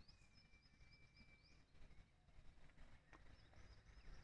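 Near silence with faint wild animal calls: a short rising chirp repeated two or three times a second, and one long thin whistled note during the first second and a half.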